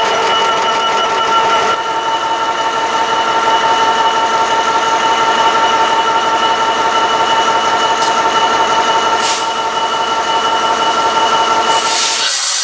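Freight train headed by a DB Cargo Class 66 diesel locomotive running through the station, its wagon wheels ringing with several steady high-pitched squealing tones over a running rumble.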